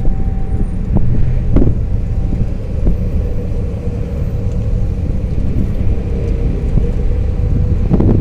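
Outdoor tornado warning siren sounding as a faint steady tone under a loud low rumble that dominates the sound.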